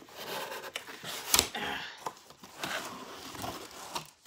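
Cardboard box being pulled open by hand, the lid and flaps scraping and rustling, with one sharp snap about a second and a half in.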